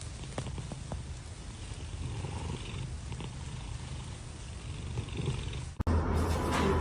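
A domestic cat purring steadily, a low continuous rumble with a few faint ticks. Near the end it cuts abruptly to a louder, different sound with a steady low hum.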